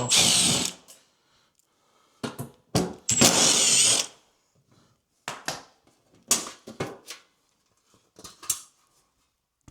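Cordless power tool running in two bursts of about a second each, with a high whine, then several lighter knocks and clicks.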